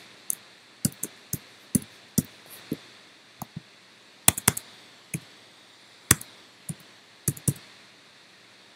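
Typing on a computer keyboard: about twenty irregular key taps, some in quick pairs, stopping shortly before the end.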